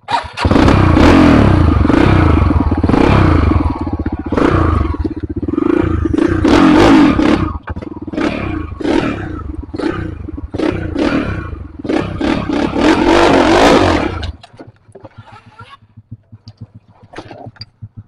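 Trail motorcycle engine revving hard in repeated surges while straining on a steep rocky climb, which the rider finds lacking the power and revs to get up. It cuts out suddenly about fourteen seconds in, leaving only faint clicks and scrapes.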